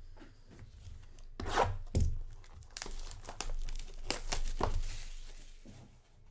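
Plastic shrink wrap being torn and crinkled off a sealed trading card box, with a few sharp rips about a second and a half in and again around four seconds in, and rustling between them.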